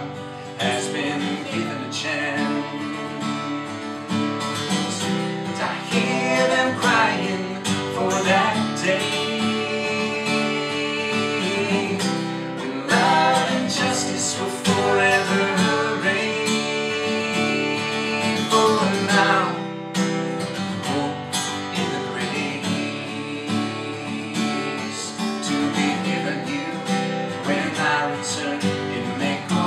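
A man and a woman singing together over a strummed acoustic guitar.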